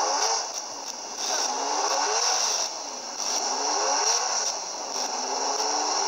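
BRM P153 Formula One car's V12 engine at high revs, the pitch climbing repeatedly with short dips between, as it is worked up through the gears.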